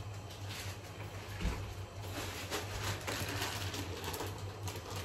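Kitchen food-prep handling: irregular scraping and rustling strokes, busier in the second half, over a steady low electrical hum.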